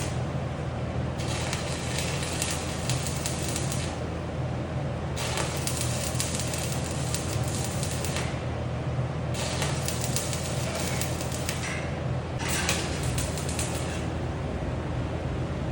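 Electric arc welding crackling and sizzling in four separate runs of two to three seconds each, over a steady low machine drone.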